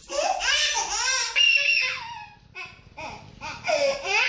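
Infant crying hard in long, loud wails while being examined, easing off for about a second midway before wailing again.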